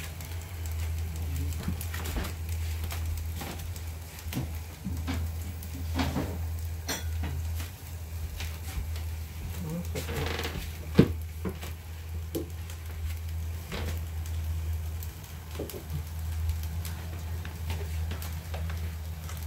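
Cooking sounds: scattered clinks and knocks of utensils against cookware over a steady low hum, with one sharp clack about eleven seconds in.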